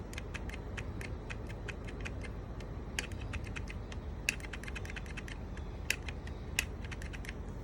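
Rapid, irregular light clicking, several clicks a second with a few louder ones, over a low steady hum.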